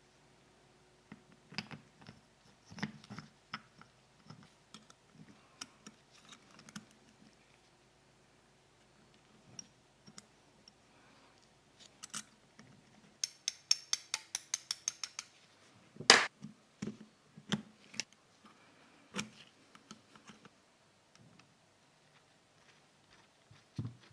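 Scattered clicks and clinks of hand tools and small parts being handled on a workbench during a brake caliper rebuild. About halfway through comes a fast run of evenly spaced clicks lasting about two seconds, followed by a single sharper knock, the loudest sound.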